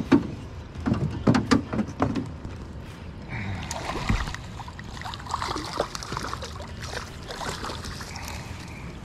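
Several hard knocks and thuds on a small boat's hull in the first two seconds, then water splashing and sloshing against it.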